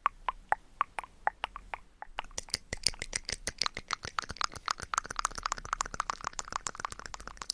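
Close-miked ASMR mouth sounds: wet tongue clicks and pops, spaced about four a second at first, then speeding up about two seconds in into a rapid, dense run of clicking.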